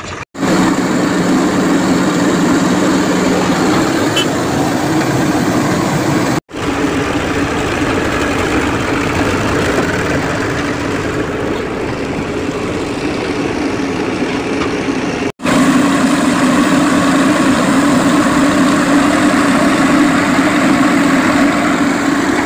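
Farm tractor diesel engines running steadily, in three short clips that each cut off suddenly; the engine is a little louder in the last clip.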